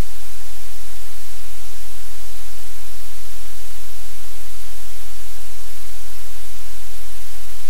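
Loud, steady hiss of static with a low electrical hum underneath, unchanging throughout.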